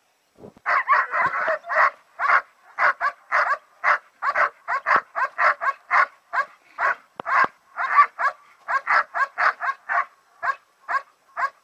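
German Shepherd puppy barking in a rapid string of short barks and yips, about two a second, while being handled and wrestled with.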